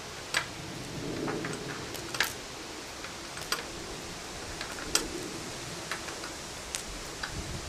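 Scattered sharp clicks and taps of hand tools and metal parts at a concrete mixer's drum axle and bearing housing, about five or six at irregular intervals.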